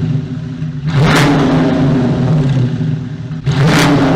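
Car engine running loudly and revving up hard twice, once about a second in and again near the end, over a steady low engine note.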